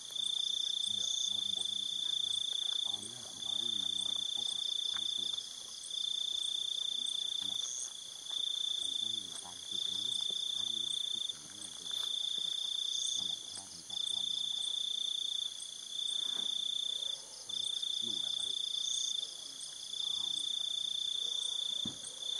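Night insects: a cricket trilling on one high pitch in long trills of one to two and a half seconds, broken by short pauses, over a fainter, higher ticking of other insects.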